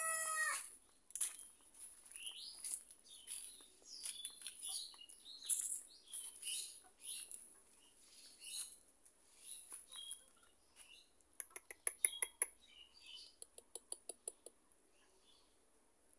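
Small birds chirping again and again in short high calls over a steady high hiss, with a short pitched call right at the start and a quick run of sharp clicks about twelve seconds in.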